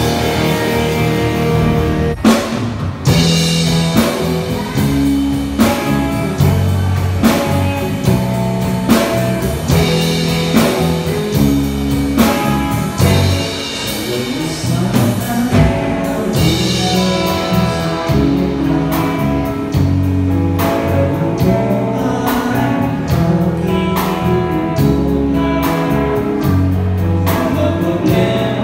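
Live rock band playing: electric guitar, electric bass and drum kit, with a male lead vocal. About two seconds in, a held chord gives way to the start of a new song.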